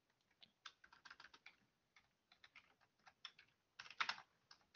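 Typing on a computer keyboard: a run of quick, faint key clicks that starts about half a second in, with a denser, louder flurry near the end.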